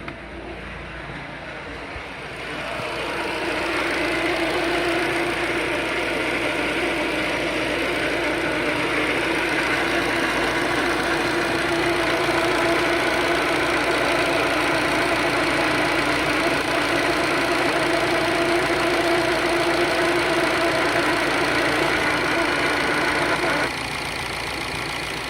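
Ford Focus Mk3 engine running, with an abnormal noise from the engine bay: a steady pitched hum over the engine sound. The noise grows louder two to four seconds in and drops off suddenly shortly before the end.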